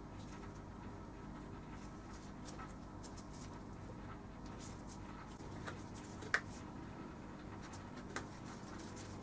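Faint handling sounds of nitrile-gloved hands threading a sewing needle and starting to stitch leather: soft rustles and light scratches, with a sharp small tick about six seconds in and a smaller one near the end.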